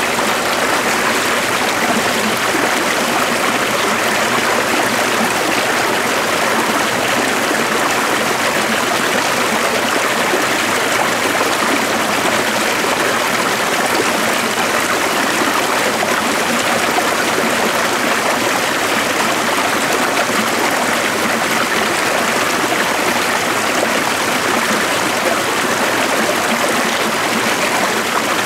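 A stream of running water flowing steadily, an even, unbroken rush of water.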